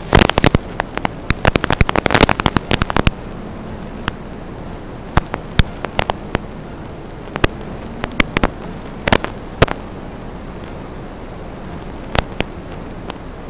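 Static on the audio of an FPV video feed: a steady hiss broken by dense crackling clicks for about the first three seconds, then scattered clicks and pops.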